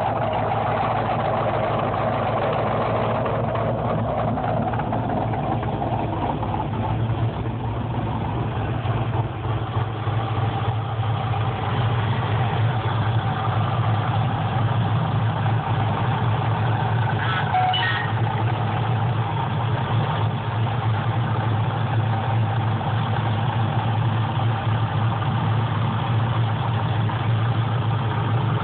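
Chevrolet Camaro engine idling steadily, heard close over the open engine bay.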